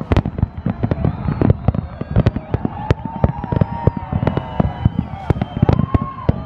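Aerial firework shells bursting in rapid, overlapping bangs and crackles, many to the second, as a large display fires continuously.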